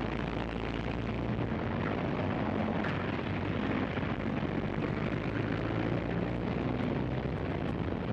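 1920s-style city street ambience: a dense, steady rumble of traffic and street noise with no single event standing out.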